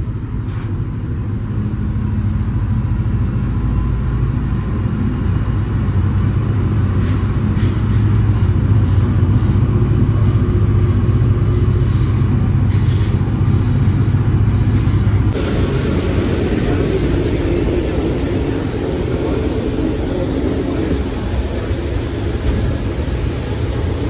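A V/Line N-class diesel-locomotive-hauled train under way: a steady low diesel rumble with wheel and rail noise, and a few short squeals or clatters a third of the way in and again a little later. About two-thirds through, the sound turns suddenly thinner and hissier.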